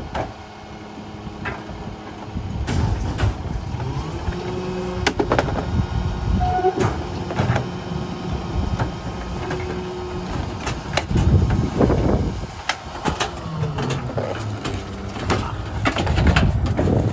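Rear-loader garbage truck's diesel engine running, growing louder about two-thirds of the way through and again near the end. Many clanks and thumps as bulk items are thrown into the rear hopper.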